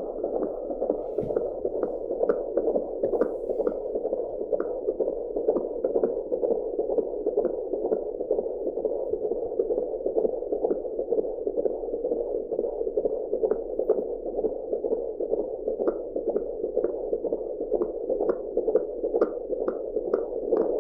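Fetal heartbeat picked up by an AngelSounds handheld fetal Doppler: a steady rushing hiss that pulses rapidly and evenly, a little over two beats a second.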